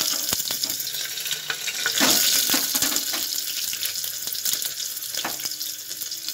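Cumin seeds and green chillies sizzling and spluttering in hot oil in an aluminium pressure cooker: a steady hiss with scattered light clicks and knocks of utensils.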